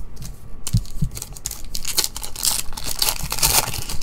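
Foil wrapper of a Panini Legacy football card pack crinkling and tearing as it is pulled open by hand, the crackle heaviest in the second half.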